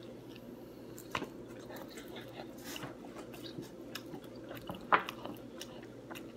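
A person chewing food, with scattered small wet mouth clicks and one sharper click about five seconds in, over a steady low hum.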